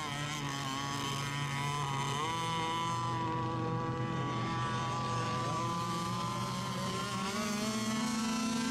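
Radio-controlled racing boats running at speed on the water, a steady engine drone whose pitch shifts up and down as the boats turn and pass.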